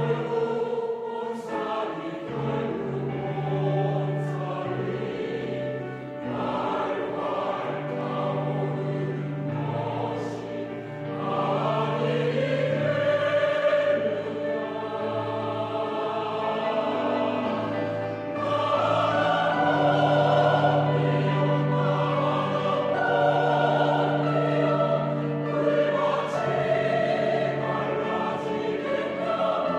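A choir singing in several parts, with sustained notes and swelling passages.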